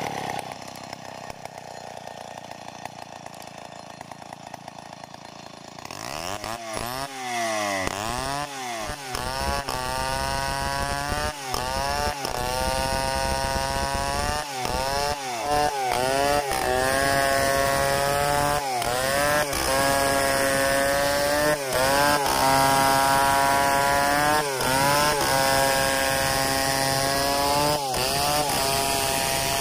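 Stihl 070 two-stroke chainsaw ripping lengthwise along a log in a freehand milling cut. About six seconds in it comes up to full throttle. From then on its engine pitch keeps sagging and recovering every second or two as the chain bites into the wood.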